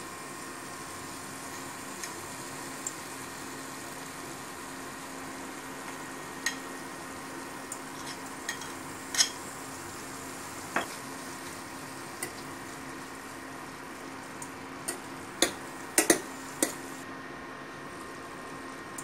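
Spiced ivy gourd cooking in a stainless steel kadai, a steady low sizzle with a faint steady hum, broken by sharp clinks of a spoon and lid against the pan, the loudest about nine seconds in and a quick cluster around sixteen seconds.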